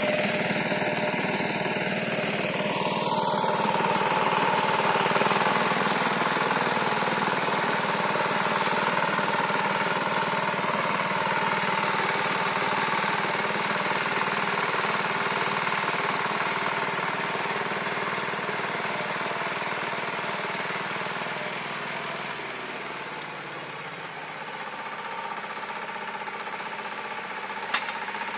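Walk-behind tractor engine running steadily while its rotary tiller works the garden soil. It grows quieter about three-quarters of the way through, and there is a single sharp click near the end.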